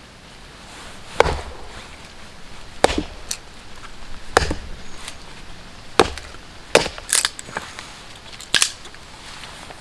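Hatchet chopping and splitting short rounds of deadwood held on a log: about seven sharp strikes, roughly one every second or so, unevenly spaced.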